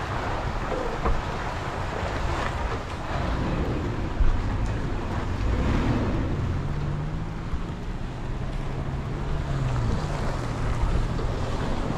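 Off-road SUV engine running at low speed over a rough dirt trail, its pitch rising and falling a little with the throttle, with tyre and wind noise on an outside-mounted microphone and a couple of brief knocks from bumps, about one and four seconds in.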